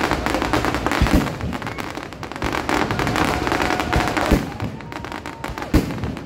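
Aerial fireworks display: a dense run of crackling from bursting shells, with several deep booms of shells going off, the strongest about a second in, just past four seconds and near the end.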